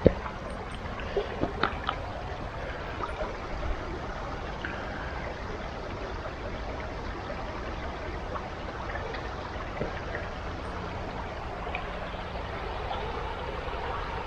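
Water of a small stream running steadily, with a few sharp clicks and knocks in the first two seconds.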